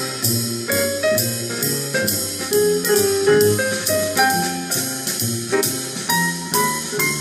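Instrumental jazz passage with piano, horns and a drum kit beating about twice a second, played back through JBL GT6 car audio speakers as a speaker sound test.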